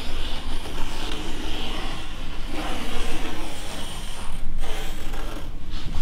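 Pencil scratching along the edge of a template as it traces an outline onto a plywood board, with short breaks where the pencil lifts near the end.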